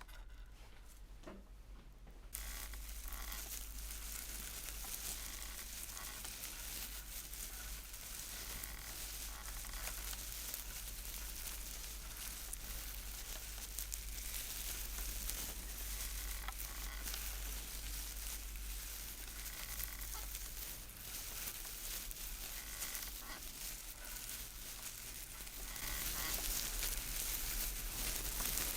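Foley sound effect made live with props: a steady rustling hiss that starts suddenly a couple of seconds in and grows louder near the end, over a low hum.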